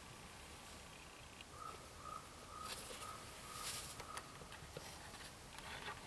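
A bird calling a short, even note about twice a second for a few seconds, with a few brief bursts of soft hiss.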